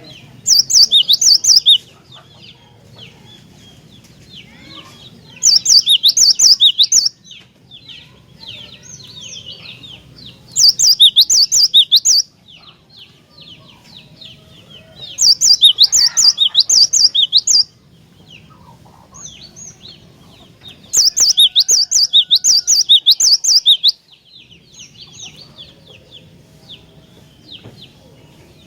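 Cinereous tit (glatik batu) singing. Loud bursts of rapid, high chirps, each lasting one to three seconds, come about every five seconds, with quieter twittering between them.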